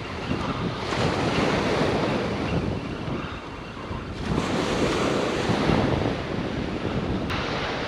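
Small waves breaking and washing up a sandy beach, swelling and easing, with wind buffeting the microphone. A single sharp click near the end.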